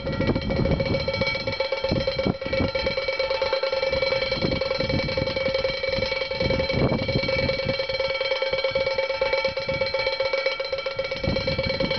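Wind-driven bird scarer with two wooden clappers beating fast and alternately on the bottom of a chamber pot, a rapid clattering over a steady metallic ring. Wind rumbles underneath.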